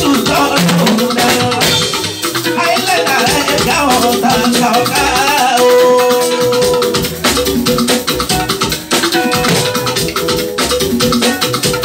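Live band music: a man singing into a microphone over a drum kit, with a shaker rattle keeping time in quick, even strokes.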